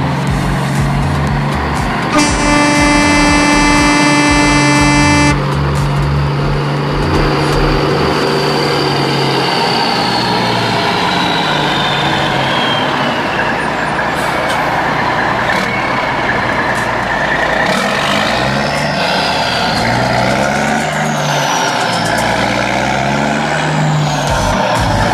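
A horn sounds one steady, held note for about three seconds, a couple of seconds in. It plays over a continuous noisy running sound whose pitches slide up and down.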